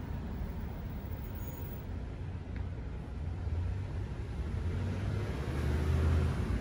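A low, steady outdoor rumble that grows louder over the last couple of seconds.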